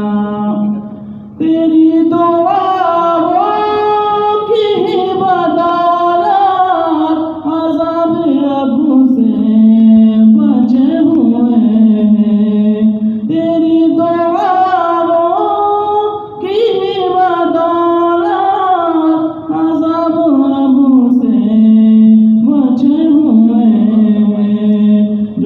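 A man singing an Urdu naat unaccompanied into a handheld microphone. He sings in long melodic phrases with ornamented glides in pitch and brief breaks for breath between phrases.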